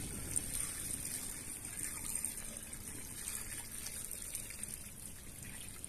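Water being poured in a steady stream into a clay pot of simmering mocotó stew, adding liquid for a long slow cook.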